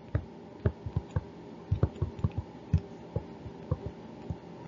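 Stylus tapping and clicking on a drawing tablet while writing by hand, a quick irregular run of light knocks.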